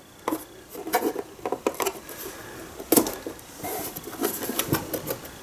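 The back cover of a 1970 Magnavox cassette player deck, its screws removed, being pried and wiggled by hand: irregular clicks, knocks and scraping from the case, with one sharper knock about three seconds in.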